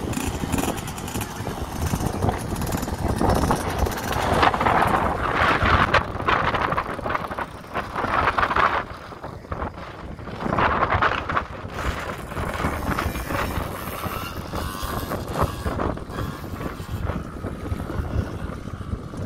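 Children's small dirt-bike engines running, swelling louder and fading again, with wind buffeting the microphone.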